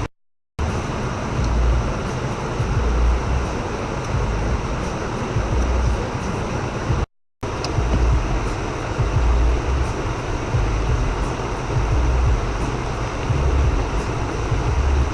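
Great Wall Hover SUV running, a steady low rumble mixed with even noise. The sound cuts out completely twice, just after the start and about seven seconds in.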